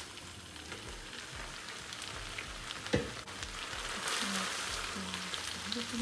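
Stir-fried noodles with chicken and vegetables sizzling in a frying pan, tossed with metal tongs, with a single knock about three seconds in. The sizzling grows louder from about four seconds, once the tossing starts. Faint background music plays underneath.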